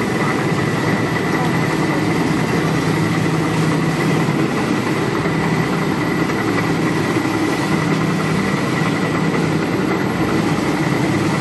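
Planetary-motion jacketed cooking kettle running, its stirrer motor and gearbox giving a steady mechanical hum with a thin high whine as the paddle turns through the cooking mixture.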